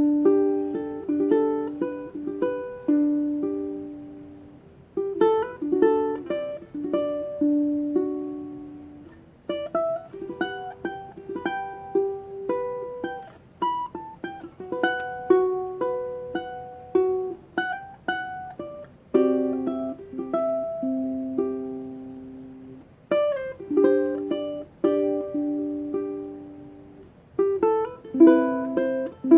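Solo ukulele fingerpicking a slow, gentle melody with plucked notes that ring and fade, phrases breaking off every few seconds before the next begins.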